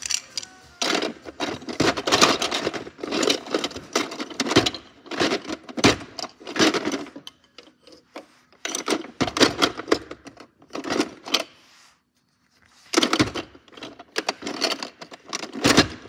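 Plastic toy bricks rattling and clattering in irregular bursts as they are handled. It stops briefly about two-thirds of the way through.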